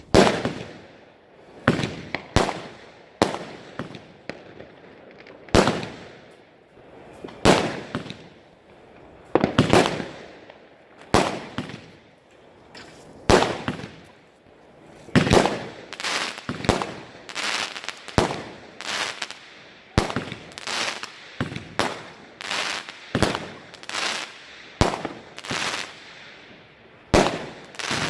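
New Year's Eve consumer firework batteries firing: an irregular string of loud bangs, roughly one or two a second, each fading out briefly after the burst.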